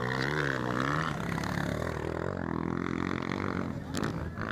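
230 cc motocross bike engines running on the track, their pitch wavering up and down, dipping and rising again as the throttle is worked. A sharp click sounds near the end.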